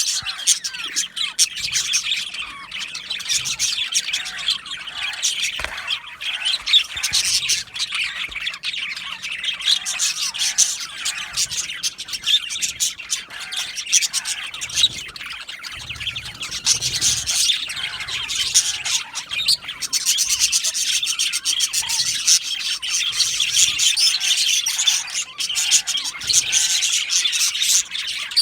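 A flock of budgerigars chirping and warbling continuously, with overlapping chatter, squawks and clicks.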